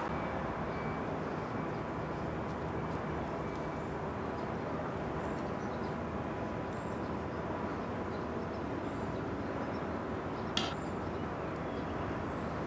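Steady outdoor background rumble with no clear single source, and one sharp click about ten and a half seconds in.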